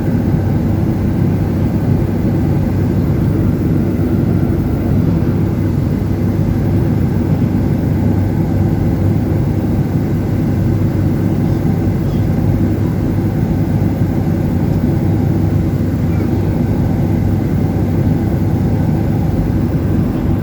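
Steady, loud drone of an airplane in flight heard from inside the cabin: engine and airflow noise, deep and unbroken.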